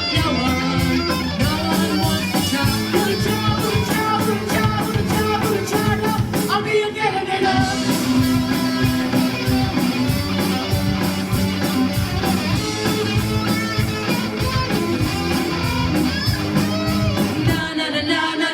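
Rock music with electric guitar and a steady beat, singing in places.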